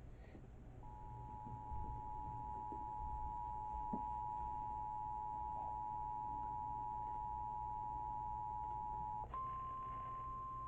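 Emergency Alert System attention signal: two steady tones sounding together for about eight seconds. Just before the end it switches to a single, slightly higher steady tone, the weather-radio warning alarm tone that heads a severe thunderstorm warning, over a faint low hum.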